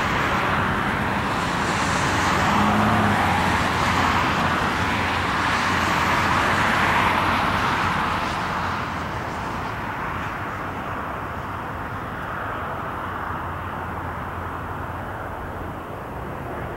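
Cars passing on a road close by, their tyre and engine noise swelling and fading over the first eight seconds. Beneath it, and left on its own near the end, is a steady, distant jet engine noise from an Airbus A320 on the runway.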